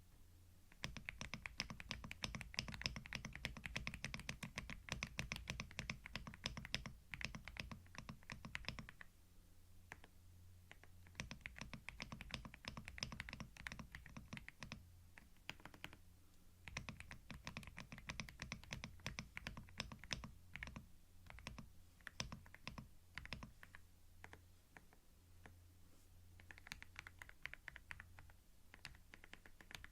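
Computer keyboard typing, close-miked in binaural ASMR style: quick runs of key clicks broken by pauses of a second or two.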